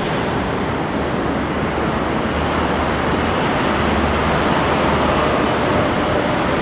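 JR Kyushu 811 series electric train approaching on the line, a steady rumble growing a little louder as it nears, with a faint hum coming in about halfway through.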